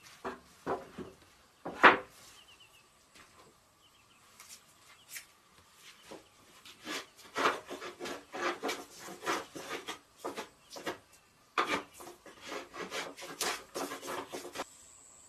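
A wooden board knocks as it is set down, with one loud knock about two seconds in. Then a hand plane shaves along the board in a quick run of repeated strokes, stopping shortly before the end.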